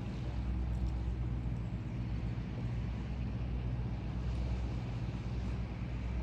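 Motor cruiser's engine running steadily at low speed as the boat passes, a low even hum.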